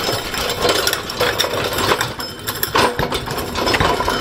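Heavy rain drumming on the workshop roof: a dense, irregular patter of taps.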